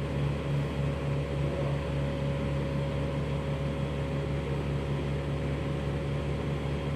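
Vacuum pump running with a steady mechanical hum, a strong low drone under an even hiss.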